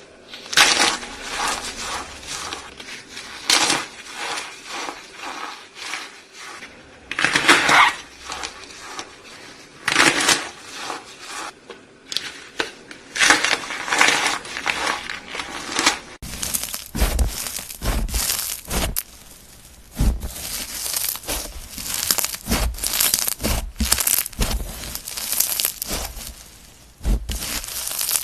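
Crunchy slime being squashed and squeezed, giving dense crackling and popping in repeated bursts. About 16 seconds in, the crackles turn sharper and come with low thuds.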